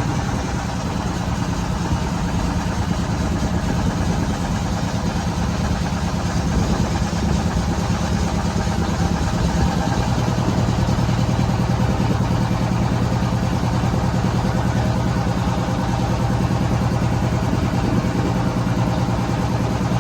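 Motorboat engine running steadily, its low note shifting slightly about halfway through.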